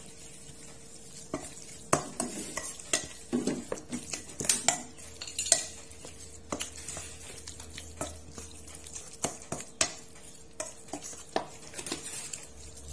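Metal spoon stirring raw minced buffalo meat and blood for laab in a stainless steel bowl: irregular clinks and scrapes of the spoon against the bowl.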